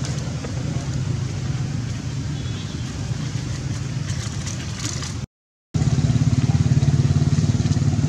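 A motor vehicle's engine running steadily with a low rumble, cut by a brief total silence about five seconds in, after which it is louder.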